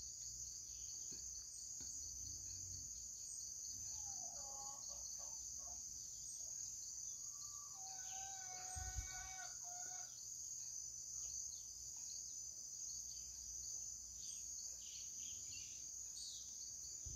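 Faint, steady high-pitched insect chirring, with a few faint bird calls about four seconds in and again around eight to ten seconds.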